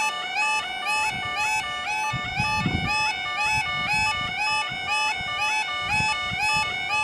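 Automatic half barrier level crossing alarms sounding together: rapid, stepped two-note warbles repeating about twice a second, the warning that the barriers are about to lower for an approaching train.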